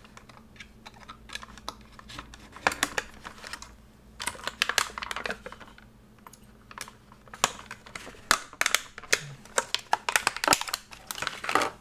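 Clear plastic blister packaging being cut and pried open with a hobby knife: irregular clicks, crackles and short scrapes of stiff plastic, bunched in several flurries.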